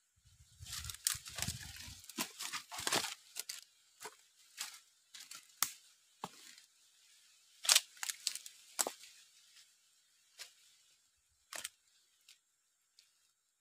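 Footsteps crunching and crackling irregularly through dry fallen leaves and twigs, busiest for the first nine seconds and then only a few scattered snaps. A low rumble runs under the first two seconds.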